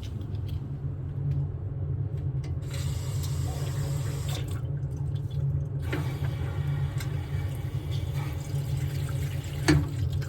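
Water running and hissing in two stretches over a steady low hum, with one sharp knock near the end.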